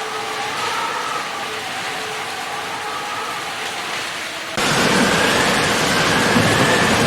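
Steady rain falling. About four and a half seconds in it cuts suddenly to louder, heavier rain with a low rumble, like a thunderstorm downpour. A faint wavering tone runs through it.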